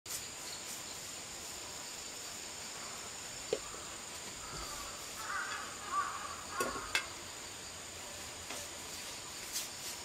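Outdoor garden ambience: insects trilling steadily at a high pitch, with a bird calling a few times about halfway through and a few sharp clicks.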